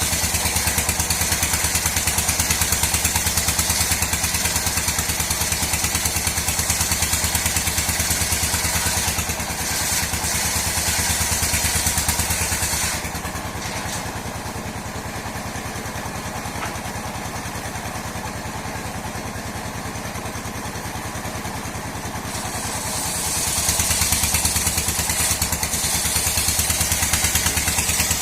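Sawmill machine running with a fast, even pulse under a strong high hiss of the saw working dry mahogany. About halfway through, the hiss and the overall level drop for roughly ten seconds, then come back.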